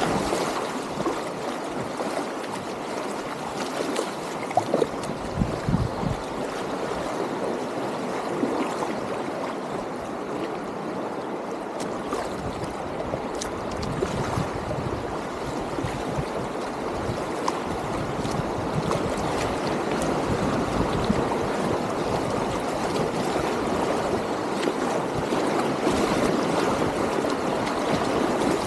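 Shallow river rapids rushing and gurgling around a packraft close at water level, with a few sudden louder splashes about four to six seconds in. The rush grows slightly louder toward the end.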